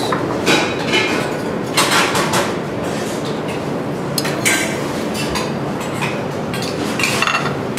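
Metal kitchen tweezers clinking lightly against a glass bowl and a porcelain plate as small mushrooms are picked up and set down, a handful of short clinks over steady kitchen background noise.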